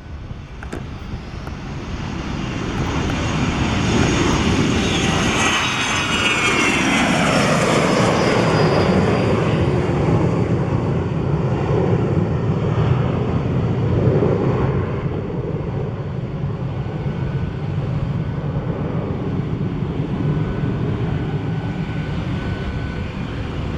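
Cessna Citation III business jet's turbofans passing on its takeoff run: the sound builds, the engine whine falls steeply in pitch as the jet goes by, and a steady rumble follows that slowly fades.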